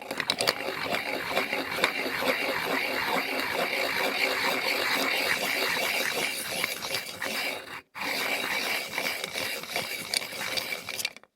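Manual pencil sharpener grinding a pencil: a continuous rasping grind with a fast, even rhythm, which stops for a moment about two-thirds of the way through and then starts again.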